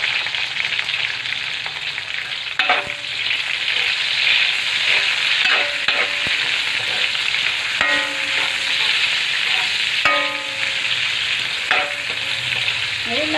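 Chopped onion and browned garlic frying in hot oil in a steel wok, a steady loud sizzle. A metal spatula stirs them, scraping and clinking against the wok several times with brief metallic rings.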